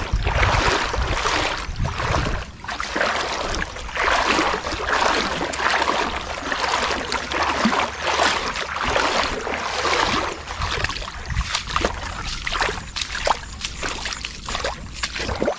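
Irregular splashing and sloshing of water with scattered sharp rustles and clicks, as a small hooked snakehead (murrel) is drawn on the line through shallow, reedy water to the bank.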